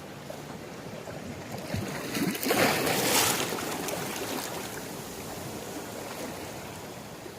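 Sea waves washing on a beach, one wave breaking and hissing out about two and a half seconds in, the loudest moment.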